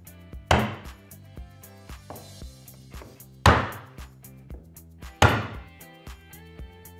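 Claw hammer striking a scratch awl three times, driving its point into a wooden frame to punch small wormhole-style holes in it. Each strike is a sharp knock with a short ring, the second and third the loudest. Background music with a steady beat plays throughout.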